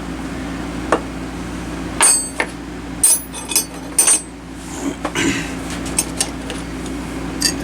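Metal clinks and knocks, several with a short bright ring: steel pliers being handled and set down on a hard surface. A steady hum runs underneath.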